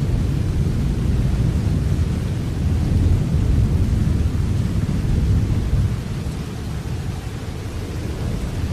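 Steady rain with a deep low rumble under it that swells about three seconds in and eases after about six seconds.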